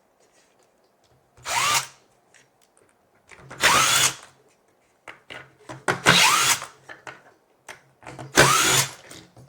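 Cordless drill-driver run in four short bursts about two seconds apart, each rising in pitch as the motor spins up. It is backing a screw out of a plant-caddy caster.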